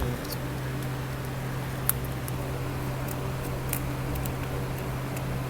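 Scattered light clicks and ticks of small tools working on an Oppo A54 phone during its teardown, one sharper tick about two seconds in, over a steady low hum.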